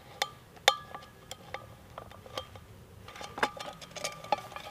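Small metal clinks and taps as a multi-tool and a wire-fastening screw knock against the rim of a titanium mug, the mug ringing briefly after each. An irregular string of sharp clinks, the loudest just under a second in.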